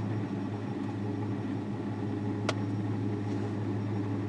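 Six-cylinder car engine idling steadily at operating temperature, a smooth even hum with no misfire showing at the moment. A single sharp click about two and a half seconds in.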